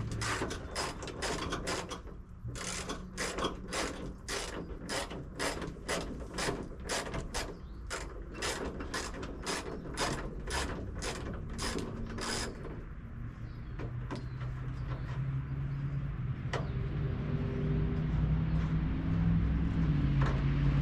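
Hand ratchet wrench clicking in a steady rhythm, about two clicks a second, as a bolt is turned, stopping about twelve seconds in; a low steady rumble follows.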